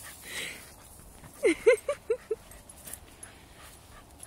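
Dog giving a quick run of five short, high-pitched play barks about a second and a half in, the first one sliding down in pitch and the rest clipped and shorter.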